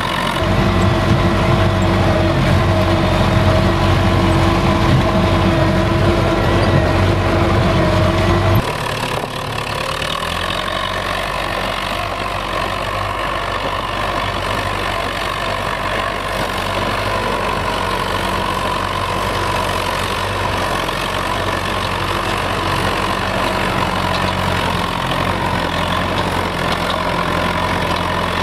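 Belarus MTZ-82 tractor's four-cylinder diesel engine running steadily under load while pulling a plough through frozen ground. It is loudest and closest for the first eight and a half seconds, then drops abruptly to a slightly quieter, steady engine note.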